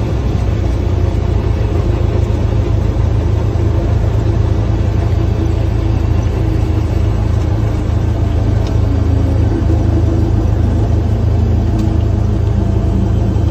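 Cessna 172's piston engine and propeller running with a steady low drone, heard from inside the cabin.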